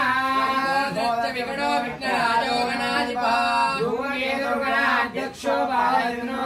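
Several voices singing a Sanskrit devotional chant together, over a low note held steady underneath.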